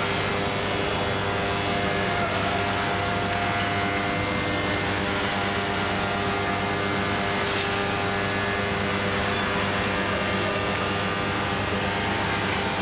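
Steady drone of heavy industrial machinery in a ferroalloy plant: an unbroken hum made of several steady tones over an even roar, with no change in level.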